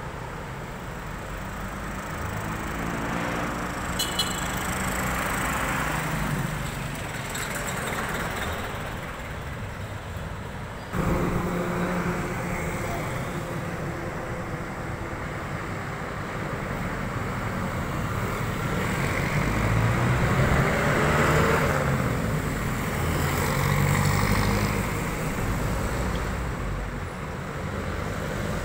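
Road traffic: vehicles passing by, their noise swelling and fading several times over a steady hum of traffic, with a sudden jump in loudness about eleven seconds in.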